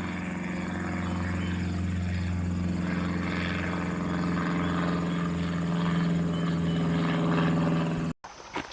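Quadcopter drone's propellers humming steadily in flight at a constant pitch, cutting off abruptly near the end.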